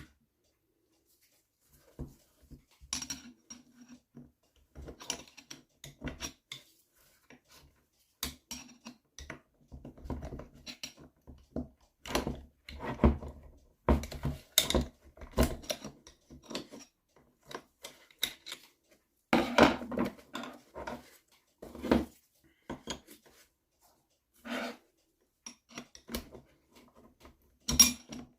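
Hand tools clinking, knocking and scraping on metal engine parts of an NSU Quickly moped engine during disassembly: irregular short clatters with brief pauses, the loudest around the middle and near the end.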